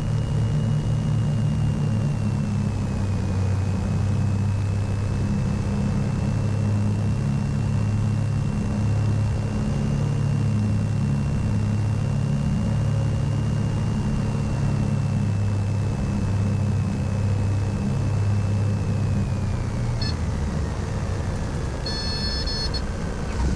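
Twin piston engines of a Piper Navajo Panther conversion droning through the cockpit intercom on final approach, a low hum that pulses as the two engines beat against each other. A thin high whine drops in pitch about three-quarters of the way through, and a short high beeping tone sounds near the end.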